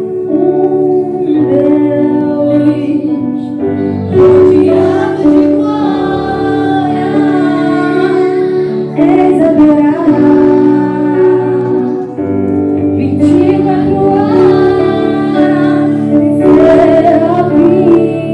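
Church praise band playing a gospel song with women's voices singing over sustained keyboard chords.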